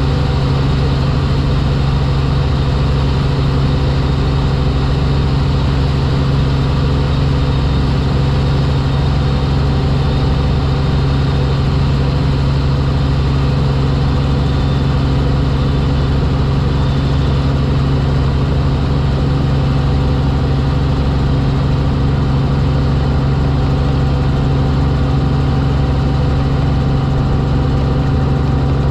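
Helicopter in flight: a steady drone of engine and rotors, a strong low hum with several steady tones above it.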